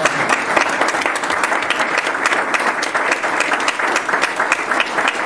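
Banquet audience applauding: many hands clapping in a dense, even patter.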